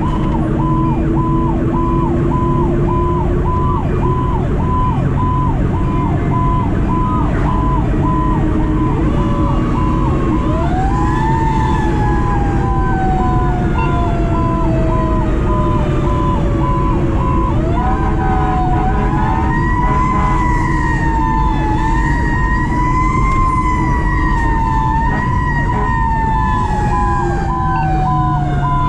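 A fire engine's mechanical Q siren spins up about ten seconds in and coasts down in a long falling wail. It spins up again a few seconds later, is held wavering near the top, then winds down near the end. Under it runs a rapid on-off electronic siren tone, and the diesel engine of the 2010 Pierce Arrow XT rumbles throughout.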